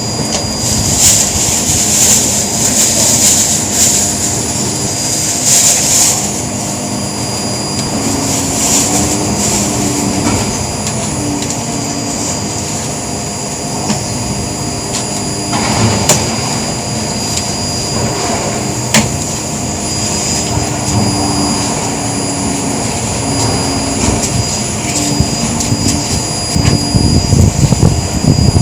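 Electric power drill running, its motor whine stepping up and down in pitch as it speeds and slows, with surges of hiss in the first few seconds and a few sharp clicks.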